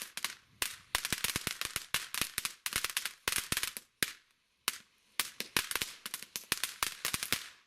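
Golden Oriole fountain firework burning with a dense crackle of rapid sharp pops, dropping out briefly just past halfway, then picking up again and stopping near the end.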